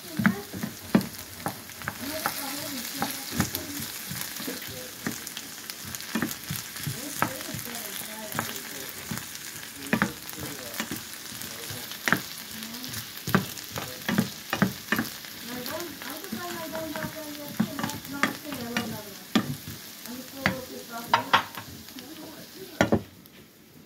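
Diced potatoes sizzling in oil in a nonstick frying pan while a utensil stirs them, with frequent irregular clicks and scrapes of the utensil against the pan. The sizzle and clicking fall away just before the end.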